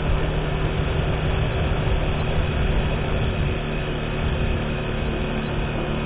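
Steady running noise of a vehicle moving along a road: a low rumble of engine and road noise with a faint steady hum.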